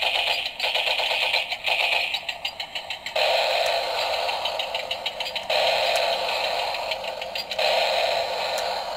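Toy tank's electronic sound effects played through its small built-in speaker: tinny rattling engine-like noise that switches to a new pattern every second or two.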